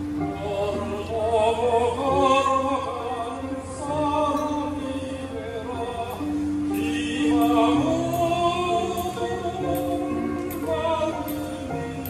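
Mixed choir of women and men singing a Korean choral song in harmony, with long held notes.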